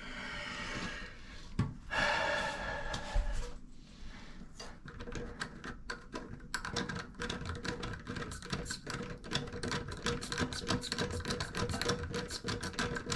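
Water hissing into a toilet tank through the fill valve, then a fast run of small clicks with a faint steady tone as the tank keeps filling.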